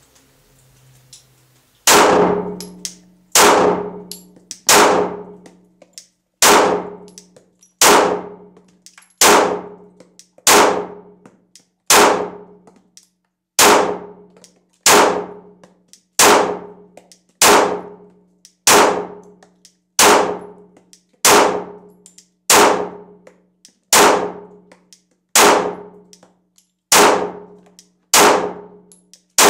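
Glock 19 Gen 4 9mm pistol firing slow, evenly paced single shots, about one every one and a half seconds, starting about two seconds in. Each sharp report is followed by a ringing tail.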